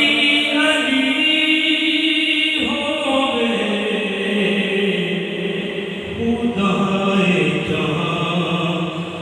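Punjabi devotional song: voices chanting long held notes that step up and down in pitch, with no clear words.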